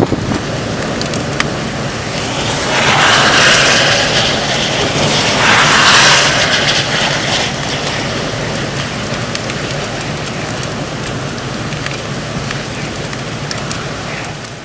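Hurricane-force wind blowing hard across the microphone, with storm-surge waves breaking; the rush swells twice, about three and six seconds in, then settles to a steady roar of wind and surf.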